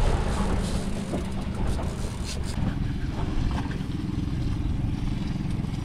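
Yamaha 40 outboard motor running steadily, a low drone under the hiss of wind and water.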